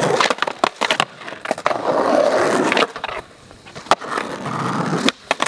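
Skateboard wheels rolling on rough concrete, broken by several sharp clacks of the board hitting the ground. The rolling drops away for a moment about three seconds in, then starts again.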